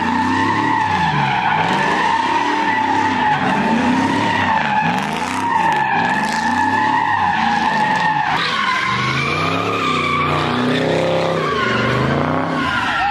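Tyres squealing continuously on pavement as vehicles spin donuts, with the engine revving up and down about once a second underneath. The squeal shifts in pitch about eight seconds in.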